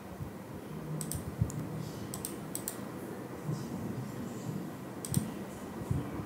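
Computer mouse button clicks: a handful of short, sharp clicks, several coming in quick pairs, over a faint steady room background.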